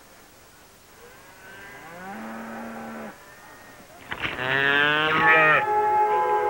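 A calf held down for branding bawls twice, the second bawl louder. Music begins just before the end.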